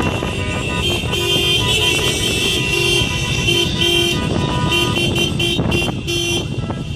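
Car horns on the gathered Subarus honking over and over, several short toots in quick succession and some overlapping, over a steady background of car and crowd noise.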